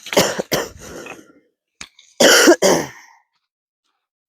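A person clearing his throat and coughing in two harsh bouts, the second, louder one about two seconds in.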